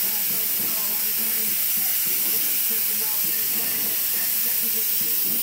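DeVilbiss Tekna spray gun hissing steadily as compressed air atomises single-stage white paint.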